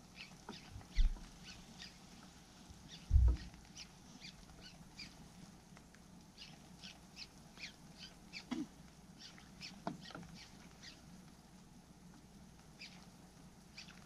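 Faint, scattered short high chirps, typical of small birds calling, with two dull low thumps about one and three seconds in.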